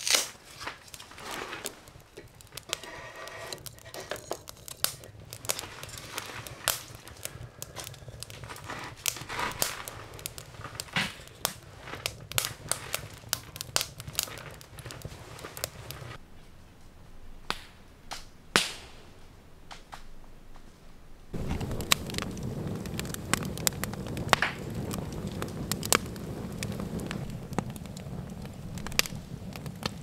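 Wood fire crackling and snapping in a small cast-iron wood stove, with sharp pops scattered throughout. About two-thirds of the way in, the sound changes to an open wood fire crackling over a steady low rumble.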